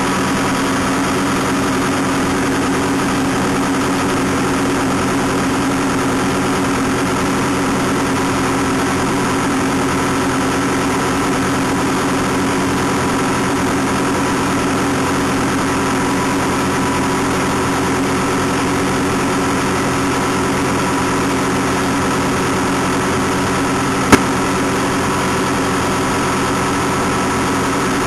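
SAMSON raspberry harvester running with a steady, unchanging machine drone. A single sharp click comes a few seconds before the end.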